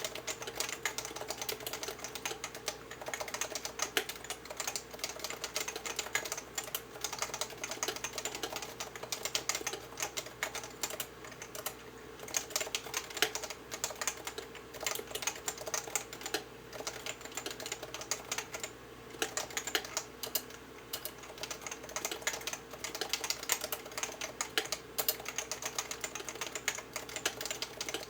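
Continuous typing on a Leopold FC660C compact keyboard with 45 g Topre electrostatic capacitive switches, not yet lubricated: a dense, unbroken run of keystrokes.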